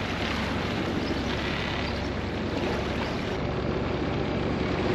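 A Sea Ray 410 Sundancer cabin cruiser's twin inboard engines running steadily under way, a low drone mixed with the wash of water.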